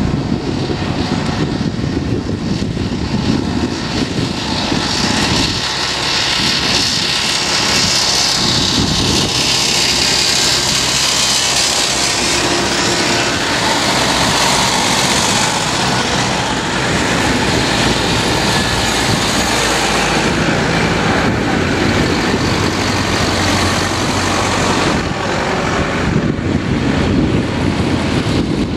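Engines of several vintage tractors running as they drive past one after another. The sound is busiest about halfway through, when one tractor passes close by.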